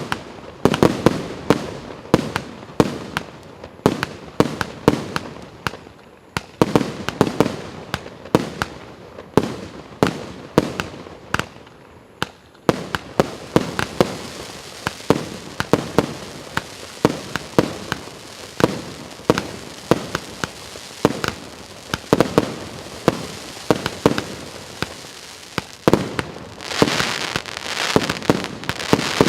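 A 150-shot, 1-inch firework cake firing shot after shot, about two sharp bangs a second. From about halfway a crackling hiss fills the gaps between the shots and grows louder near the end.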